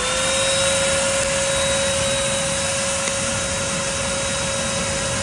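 Handheld cordless electric blower running at a steady speed, a high whine over a rush of air, blowing into a campfire to fan the embers.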